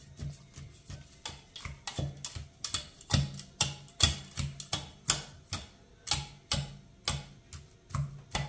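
Wire potato masher pounding boiled potatoes in a metal saucepan: a steady run of knocks, about three a second, as the masher strikes through to the bottom of the pan. The strokes grow louder about three seconds in.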